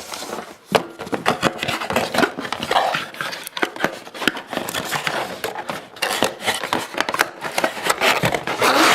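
Gaming-mouse packaging being handled and pulled apart: continuous rustling and scraping with many sharp clicks and small knocks.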